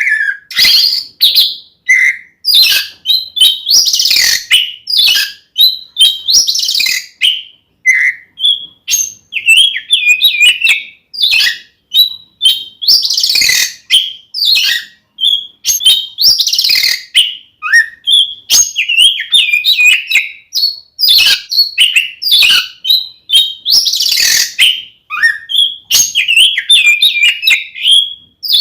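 Oriental magpie-robin (kacer) singing loudly in a long, varied, nearly unbroken run of quick whistles, chirps and harsh rasping notes, the phrases following one another with only short gaps. This is the full, combative 'ngeplong tarung' song of a bird in peak singing form (gacor).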